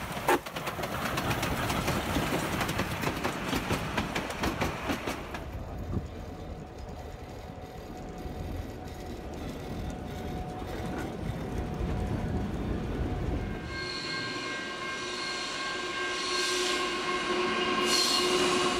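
Three train recordings in a row. First a steam locomotive working past with rapid exhaust beats and clatter. About five seconds in, a diesel locomotive's engine running steadily. From about fourteen seconds in, a diesel locomotive hauling a freight train, with a steady multi-tone horn or warning sound that gets louder near the end.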